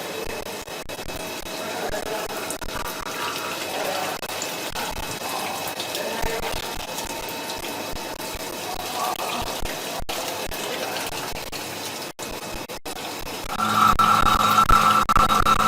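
A 4-axis CNC machining centre cutting a spiral bevel gear, with a steady rush of flowing coolant. Near the end a louder steady whine starts.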